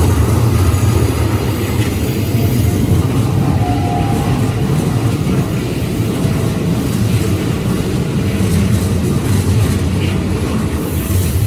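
Keikyu Line electric train running past over a level crossing: a loud, steady rumble of wheels on rail.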